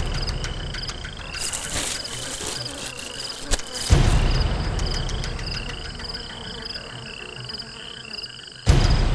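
Night-time ambience of frogs calling, a steady run of short rising chirps repeated over and over. A deep booming hit comes about four seconds in and another near the end.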